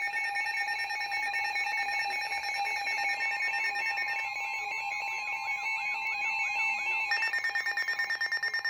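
Several emergency alert alarms sounding at once from weather radio receivers, signalling an incoming severe thunderstorm warning: overlapping steady alert tones, with a warbling tone in the middle and a fast, even beeping starting about three-quarters of the way in.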